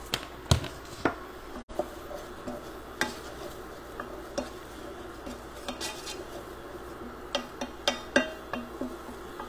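A wooden spoon stirring chicken in a cooking pot, knocking sharply against the pot now and then, with a quick run of knocks near the end.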